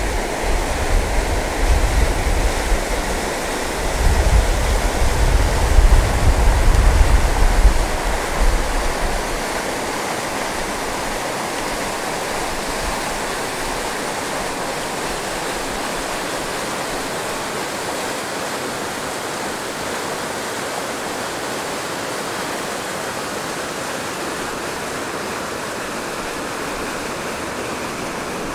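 Waterfall rapids: whitewater rushing over boulders, a steady, even noise. For about the first nine seconds, wind gusts buffet the microphone with a louder, uneven low rumble.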